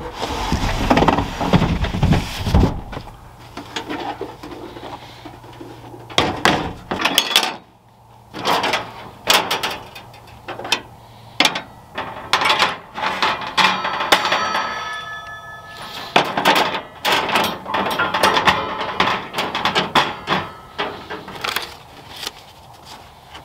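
Handling noise of a two-burner camp stove on a truck-bed slide-out drawer: a rolling rumble at the start as it comes out, then a run of knocks and metal clanks as the lid and grates are handled, with a short metallic squeal about fourteen seconds in.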